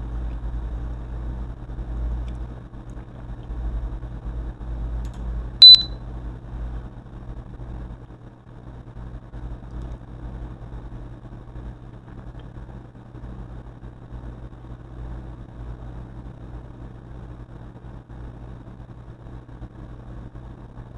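Steady low hum and background rumble, fuller in the first several seconds, with a single short, loud, high-pitched electronic beep about six seconds in.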